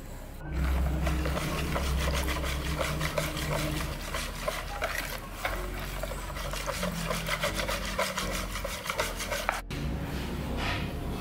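Steel wire whisk beating thin caramel cake batter in a plastic bowl: a quick, rhythmic wet scraping of the wires against the bowl. It breaks off briefly near the end.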